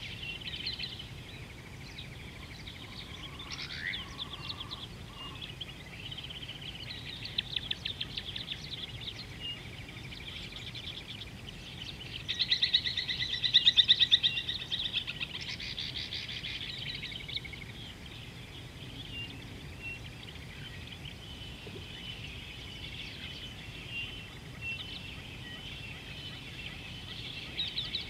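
Wild birds chirping and trilling, with a loud, fast trill about halfway through, over steady low background noise.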